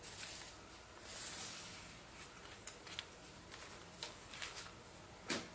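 Pencil scratching across pattern paper in two strokes as a line is drawn, followed by a few light taps and paper rustles, the loudest tap near the end.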